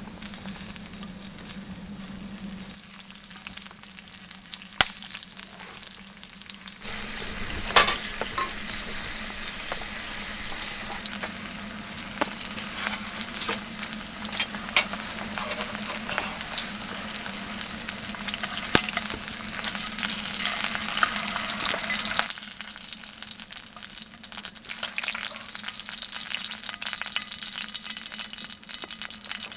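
Meat sizzling while it grills for yakiniku, with occasional sharp pops of spitting fat. The sizzle gets much louder about seven seconds in as more meat goes on or is turned, then falls back near the end. A steady low hum runs underneath.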